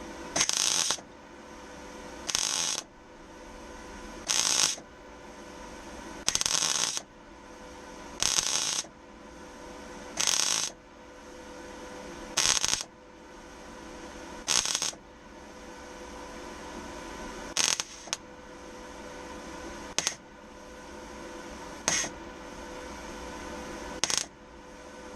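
MIG welding arc from a Röhr MIG-200MI, struck in short crackling bursts about every two seconds: a run of stitch or tack welds laid one after another. A steady hum from the welder sits between the bursts.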